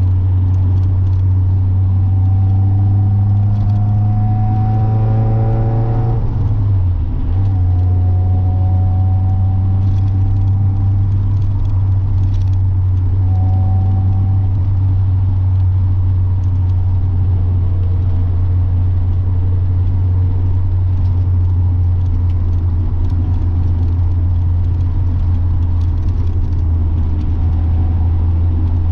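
NA Mazda Miata's four-cylinder engine driving: the revs climb through a gear, drop at a shift about six seconds in, and pull up again twice. It then settles into a steady cruising drone, with a faint jangling rattle over it.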